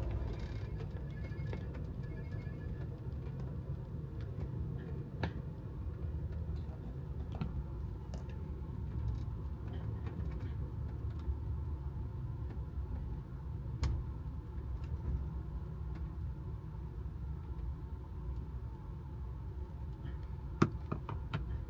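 Ride noise inside a moving Amtrak Superliner sleeping car: a steady low rumble with scattered small clicks and knocks, and one sharper click near the end.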